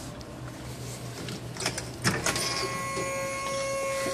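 A switch clicks about halfway through, then the electric motor of a motorized iPad console starts and runs with a steady whine as it tilts the console up.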